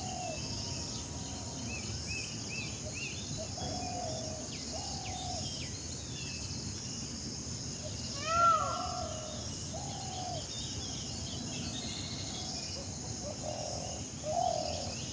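Several birds calling and singing: short arched whistled notes repeat every second or so, with higher chirps above them and one louder call about eight seconds in. Under them runs a steady background hiss and a steady high-pitched hum.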